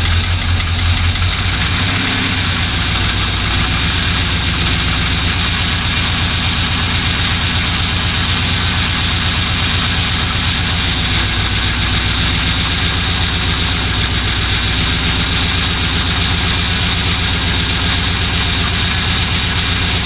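A 2002 Pontiac Trans Am's LS1 V8 engine idling steadily with a rhythmic knock, coming from an engine that has just been rebuilt.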